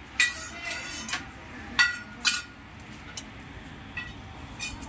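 Kitchen utensils and dishes clinking and clanking, with a short metallic ring: four sharp strikes in the first two and a half seconds, then a few lighter clinks.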